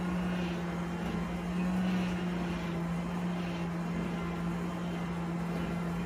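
Forge air blower running steadily, feeding air through a duct into a coke-and-anthracite fire, a steady hum; it has been turned down a bit now that the steel is sparkling at welding heat.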